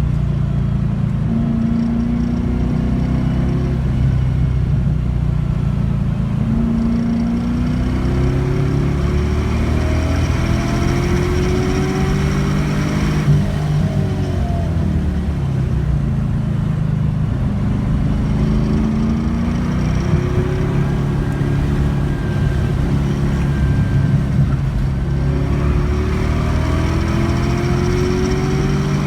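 LS1 5.7-litre V8 in a swapped BMW 318ti driven hard, its note climbing under acceleration and dropping back again and again as the car is worked through the gears and lifts for corners.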